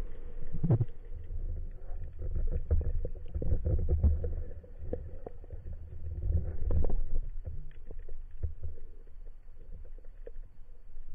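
Underwater sound through a camera housing: a low, muffled, uneven rumble of water moving past it as it travels over the rocks. Scattered clicks and knocks run through it, the sharpest about a second in.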